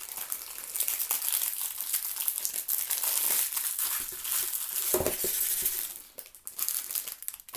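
Plastic wrap and packaging crinkling as a YuLong V2 speed cube is unwrapped, with a brief thump about five seconds in and a few light clicks near the end.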